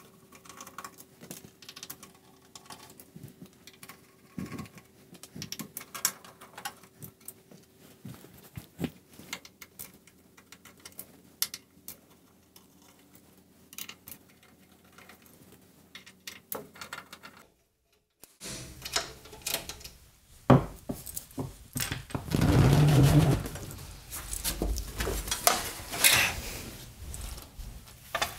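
Screws being taken out of a Hammarlund SP-600 receiver's metal front panel: a run of small metallic clicks and light scrapes. After a short break about two-thirds in, louder knocks, thuds and scraping come as the receiver is shifted and tipped over.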